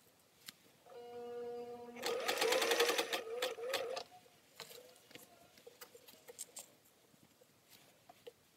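Singer 500A sewing machine: the motor hums for about a second, then the needle stitches a seam at speed with rapid, even strokes for about two seconds before stopping abruptly. A few light ticks follow as the fabric is handled.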